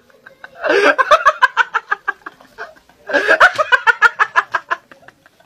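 Laughter in two long bouts of quick pulsing laughs, each about a second and a half, with a short pause between.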